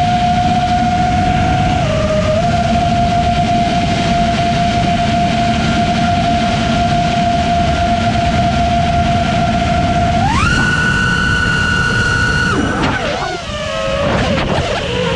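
5-inch FPV quad's four brushless motors (Brother Hobby R6 2207 1800kv on 6S) whining steadily, with propeller and wind rush, as picked up by the onboard GoPro. About ten seconds in, the whine jumps sharply higher as the throttle is punched for a steep climb. About two seconds later it drops and wavers up and down as the quad is thrown around.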